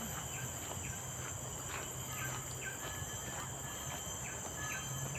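A steady, high-pitched drone of forest insects. Over it are footsteps on a dirt trail at a walking pace of about two steps a second.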